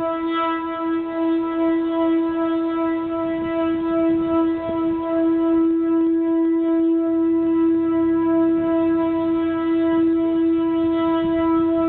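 Whelen WPS electronic warning siren sounding the Danish all-clear signal: one steady, unbroken tone held at a constant pitch.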